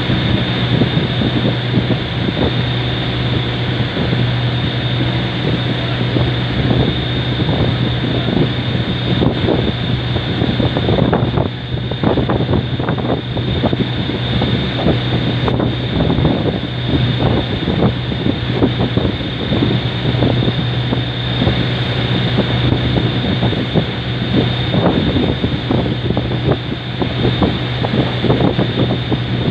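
A boat's engine running at a steady drone, with wind buffeting the microphone in irregular gusts.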